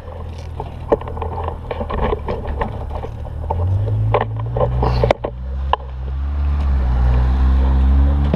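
Sharp clicks and knocks of a camera being fitted and adjusted on a scooter's handlebars, over a low vehicle rumble that grows louder in the second half.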